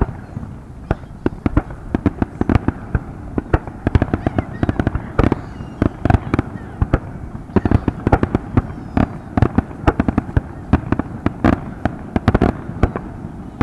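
Fireworks display: aerial shells bursting in a dense, irregular barrage of bangs and pops, several a second.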